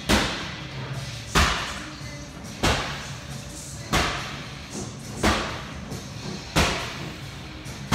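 Background music with a slow, heavy beat: a sharp, echoing drum hit about every 1.3 seconds over a low, steady bass.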